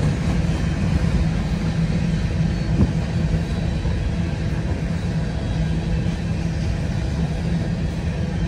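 Diesel freight locomotive running: a steady low rumble with a steady engine hum.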